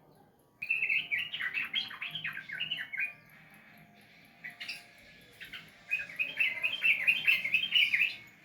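Yellow-vented bulbul (trucukan) singing in two bursts of quick, bubbly chattering phrases, the first starting about half a second in and the second about four and a half seconds in.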